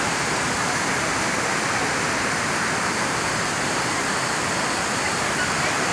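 Düden Waterfall's falling water, a steady, unbroken rush of noise.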